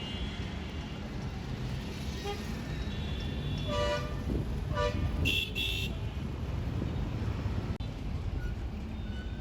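Road traffic running steadily, with vehicle horns honking: two short lower-pitched toots about four seconds in, then a higher-pitched honk just after.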